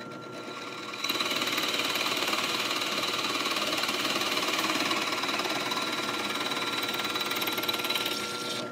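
Drill press running with a Forstner bit boring into a wooden board: the cutting noise starts about a second in and eases off near the end, over the motor's steady whine.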